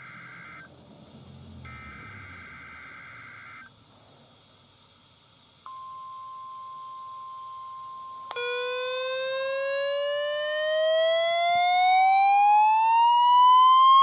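Midland HH51 weather radio receiving a NOAA Weather Radio Required Weekly Test: two bursts of warbling SAME digital header tones, a short pause, then a steady 1050 Hz alert tone from about five and a half seconds in. About eight seconds in, the radio's own alarm sounds over it: a loud siren tone that sweeps steadily upward.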